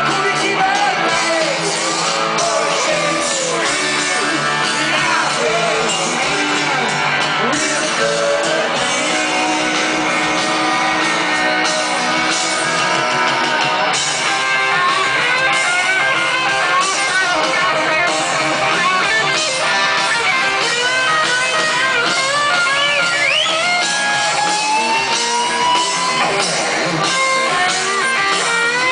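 Hard rock band playing live through a stadium PA, heard from within the crowd: electric guitars, drums and bass with a singer's voice. Sliding, bending electric guitar lines stand out over the band in the second half.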